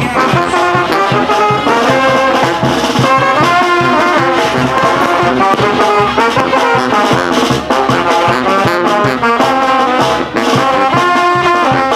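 Regional brass band music, with trombones and trumpets playing over a steady beat.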